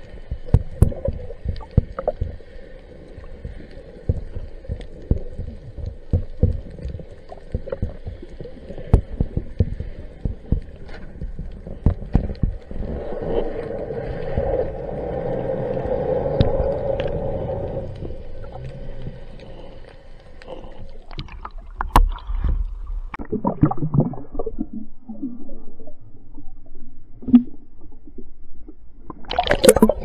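Underwater sound picked up by a camera on a speargun: a muffled water-noise bed with frequent sharp knocks and clicks from the gun and housing being handled, and a steady hum that swells for a few seconds in the middle. Near the end, a burst of bubbling and splashing as the camera nears the surface.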